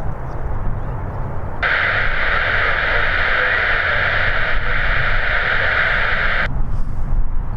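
Air traffic control radio keyed open without speech: a loud, even static hiss switches on about one and a half seconds in and cuts off abruptly about five seconds later. A steady low rumble runs underneath.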